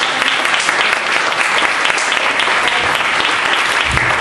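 Audience applauding steadily, with a low thump near the end.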